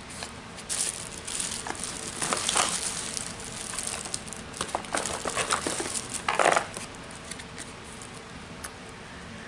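Candy packaging crinkling and rustling as it is handled, in irregular bursts that are loudest about six and a half seconds in, then die down for the last couple of seconds.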